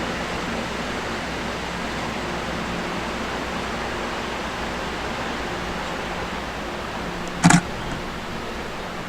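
Steady hum and fan-like rush of an LIRR M-3 electric multiple-unit train standing at the platform, with a few faint steady low tones. A brief sharp sound about seven and a half seconds in is the loudest moment.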